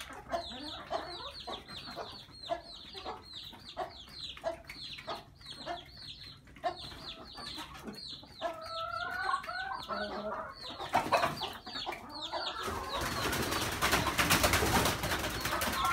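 Young chicks peeping rapidly: many short, high, falling peeps, with a hen's lower wavering calls about halfway through. In the last few seconds a rough rasping noise builds over the peeping.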